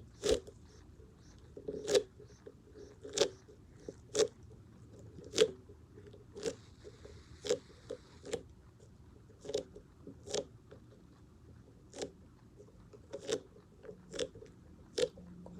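A fidget toy being squeezed in the hands, giving short sharp crackling pops at irregular intervals of about one a second.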